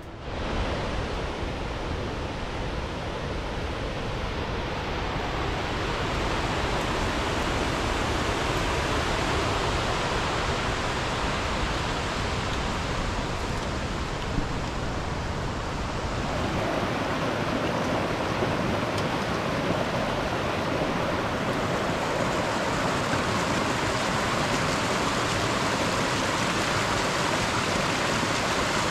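A mountain creek rushing over rocks, a steady loud wash of water that shifts in tone about sixteen seconds in.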